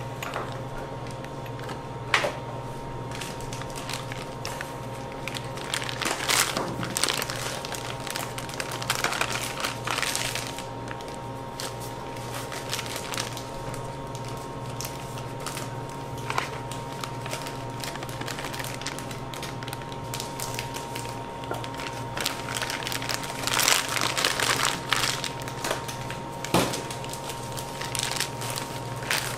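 A spatula scraping and stirring thick cream in a stainless steel bowl, then a plastic piping bag crinkling as cream is spooned into it, with a few sharp clicks against the bowl. A steady hum runs underneath throughout.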